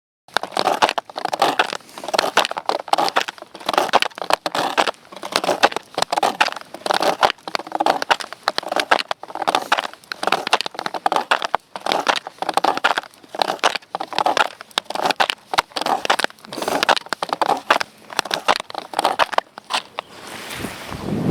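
Footsteps in snowshoes crunching through snow, a steady walking pace of about one step a second. Near the end the crunching gives way to a softer, lower sound.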